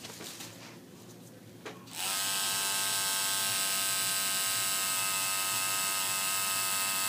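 Electric tattoo machine starting about two seconds in and then buzzing steadily at an even pitch as it is worked on the skin.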